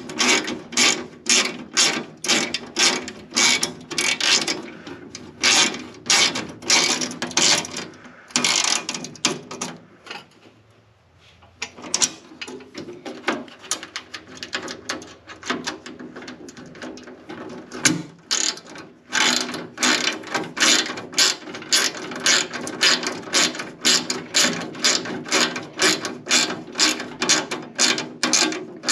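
Hand ratchet wrench clicking in quick runs of strokes as it turns bolts, with a short pause about ten seconds in before the clicking resumes.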